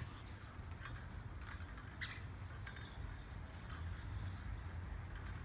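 Scattered light clicks and clinks of kitchen utensils and plastic toys hanging from a PVC playpen frame, knocked about by playing golden retriever puppies, over a low steady rumble.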